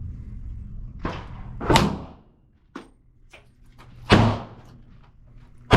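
A .40-calibre pistol firing four shots with sharp cracks and short echoing tails: two about half a second apart, then two more about a second and a half apart, the last two loudest.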